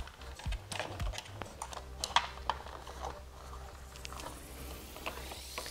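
Scattered light clicks and taps of a small flathead screwdriver and plastic wiring connectors being handled while the locking tab on a motorcycle turn-signal plug is pried up.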